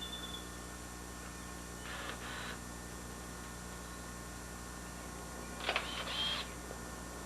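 Camcorder's own running noise: a steady low hum, broken by two short mechanical whirring bursts, one about two seconds in and a louder one just under six seconds in.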